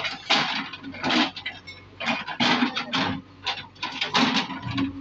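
JCB backhoe loader's bucket working through broken brick rubble: bricks clattering and scraping in a run of irregular crashes, over the steady low hum of the diesel engine.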